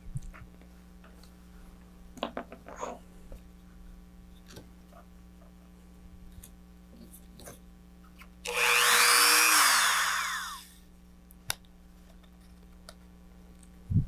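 Small handheld power drill running for about two seconds, its motor pitch rising then falling, as it drills a hole through a fiberglass rocket bulkhead. Before it, light clicks of the bit being fitted into the chuck.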